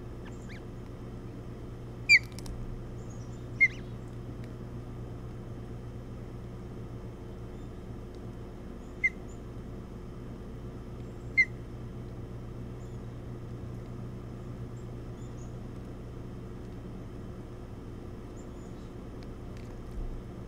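Four short, high, single chirps from ospreys at the nest, spread several seconds apart, the first two close together, over a steady low hum.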